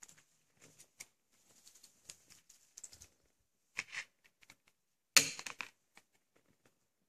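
Handling of a plastic DVD case and paper insert: light rustles and small plastic clicks. The loudest is a sharp snap about five seconds in as the disc is pressed off the case's centre hub.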